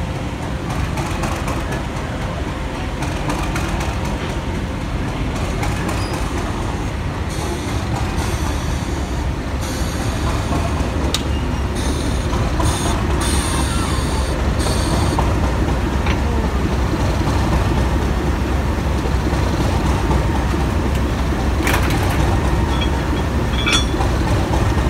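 Diesel shunting locomotive's engine running with a steady low rumble as it eases up to a carriage, with one sharp knock near the end.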